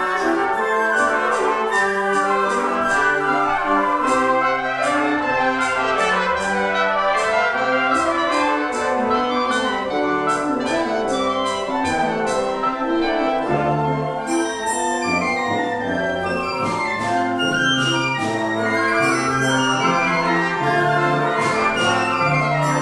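Concert band playing a piece live, woodwinds (flutes, clarinets, saxophones, bassoon) and brass sounding together in many moving and held notes.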